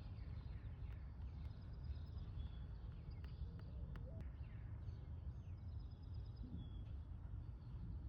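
Birds chirping faintly, with short high notes and a few quick falling calls, over a steady low outdoor rumble.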